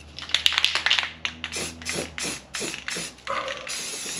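Aerosol spray paint can being shaken, its mixing ball rattling in an even rhythm about three times a second, after a few scattered clicks in the first second.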